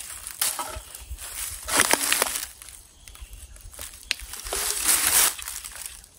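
Dry leaves and grass crunching and rustling under footsteps, in two bursts about two and five seconds in, with a few light clicks between.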